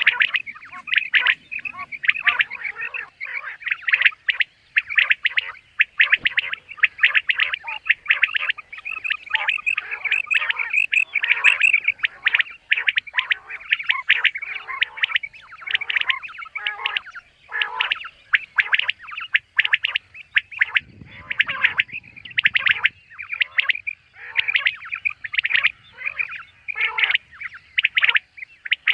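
Common quail calling: a dense, unbroken run of short, high chirping calls in quick succession.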